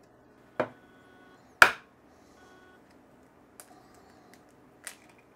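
A few sharp clicks and knocks of eggshell against glass as an egg is cracked on the rim of a glass for separating. Two clear knocks about a second apart, the second the loudest, then two fainter clicks near the end.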